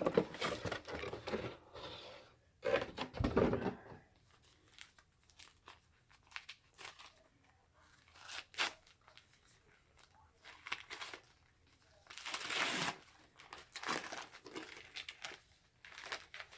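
Packaging being torn open and handled around a mailed comic book: tearing and crinkling in irregular bursts, busiest in the first few seconds and again about twelve seconds in, with scattered rustles and clicks between.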